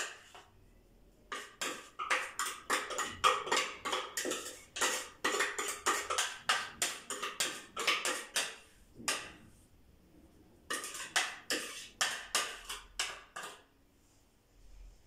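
Small food chopper run in short pulses, about two or three a second with a brief pause about two-thirds of the way through, chopping garlic with spices into a marinade.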